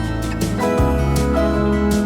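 Background music: a gentle, guitar-led track with a bass line and a steady beat.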